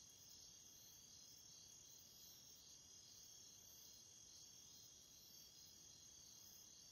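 Near silence with faint crickets chirring steadily and high up.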